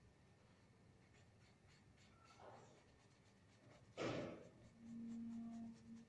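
Faint scratching of a paintbrush dragged across paper in short strokes. About four seconds in there is a sudden loud noisy burst, followed by a steady low tone lasting about a second.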